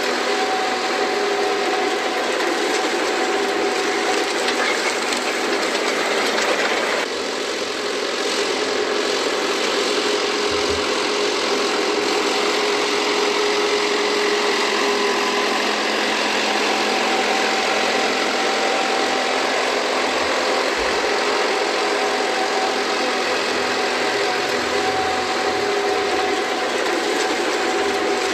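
Engine of farm harvesting machinery running steadily, a continuous mechanical drone with an abrupt change in tone about seven seconds in.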